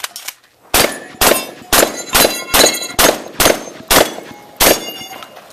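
Nine rapid shotgun shots, about two a second, each with the ring of struck steel targets after it.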